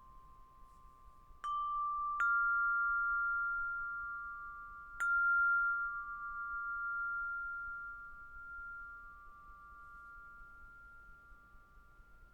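Tuned metal chimes struck three times in the first five seconds, on two close notes. Each note rings on and slowly fades, and the earlier notes are still sounding under the later ones.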